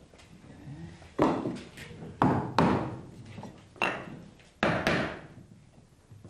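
Hammer striking a wooden block held against a piece of half-log pine siding, five blows, to drive the siding piece down tight against the course below.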